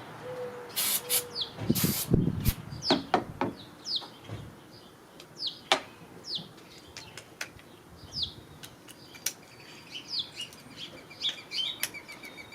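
A bird chirping over and over in short, falling notes. A few sharp knocks with a brief low rumble come about one to two seconds in.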